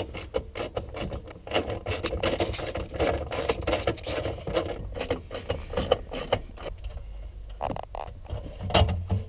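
Socket ratchet on an extension clicking in quick runs as the bolts holding the rear-speaker amplifier are undone, with a few louder knocks near the end as the loosened amplifier is handled.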